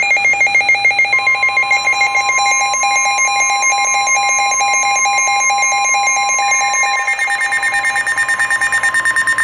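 NOAA Weather Radio 1050 Hz warning alarm tone, a steady single tone that begins about a second in and holds, signalling a warning broadcast is about to follow. Under it runs a rapid electronic beeping, about five beeps a second, which shifts to a higher pitch around seven seconds in.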